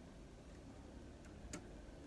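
Faint ticks and one sharp click about one and a half seconds in, from hands handling the plastic frame of a partly disassembled Samsung ML-1660 laser printer.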